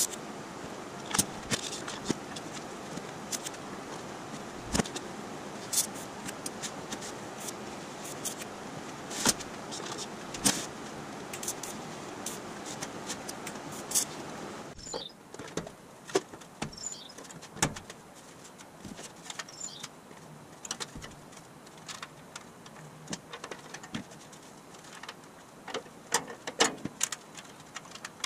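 TIG welding of stainless steel grille slats: a steady arc hiss with sharp metallic clicks and taps over it. About halfway the hiss stops abruptly, and scattered light metallic clicks and taps continue.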